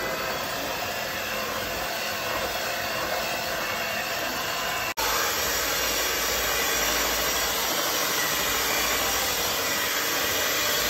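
Electric hand mixer running steadily, its beaters working through a thick creamy mixture in a bowl. It breaks off for an instant about five seconds in and comes back slightly louder.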